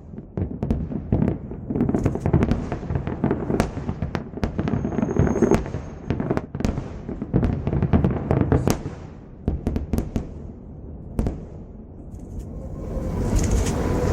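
Aerial fireworks display: a rapid, irregular run of shell bursts and crackling that thins out about nine seconds in, with a few more scattered bangs after. Near the end a steadier noise rises.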